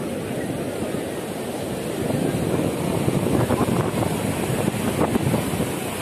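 Ocean surf washing onto a sandy beach, mixed with wind buffeting the microphone; the noise swells about two seconds in and eases near the end.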